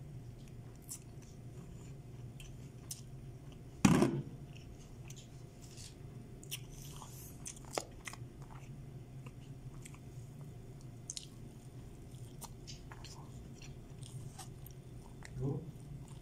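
A man chewing mouthfuls of rice and chicken eaten by hand, close to the microphone, with many small wet mouth clicks. One loud knock about four seconds in stands out above the chewing.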